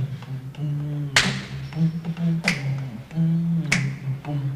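A human beatbox: a hummed, pulsing vocal bass line, with a sharp snare-like click on the beat about every 1.25 seconds.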